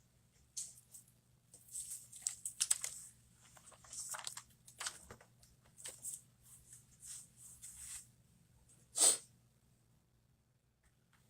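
Small parts and tools being handled on a workbench during a smartphone teardown: scattered scrapes, clicks and rustles, then one sharper, louder sound about nine seconds in.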